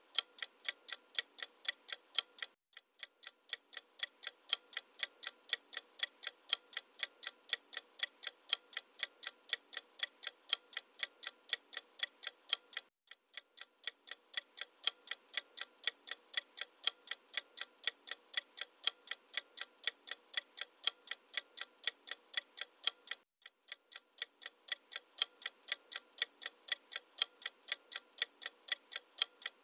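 Clock ticking sound effect used as a quiz answer timer: sharp, even, high-pitched ticks about three a second, dropping out briefly three times.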